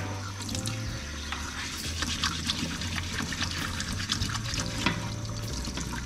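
Water running from a tap into a kitchen sink, with small clicks and scrapes of parts being handled and rinsed. Soft background music with a bass line plays underneath.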